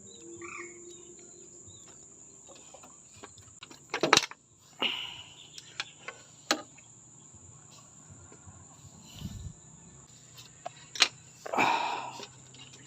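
Insects, crickets by the sound, trilling steadily in a high, even drone. Several sharp knocks and short rustling bursts cut through it: one pair about four seconds in, a single knock a little later, and another pair near the end.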